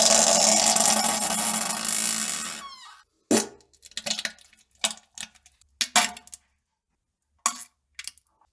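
A wet, sputtering fart and bowel movement, about three seconds long, trailing off. It is followed by a scatter of short, sharp plops and drips into toilet water.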